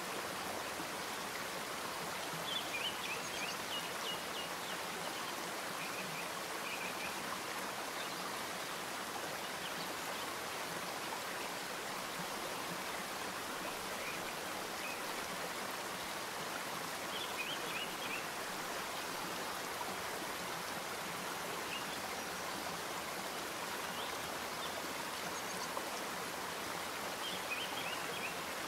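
Steady rushing background noise with no change in level, with a few short clusters of faint light clicks.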